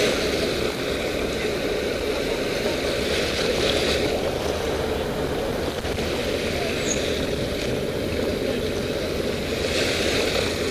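A motorboat's engine running steadily out on the water, mixed with wind and water noise.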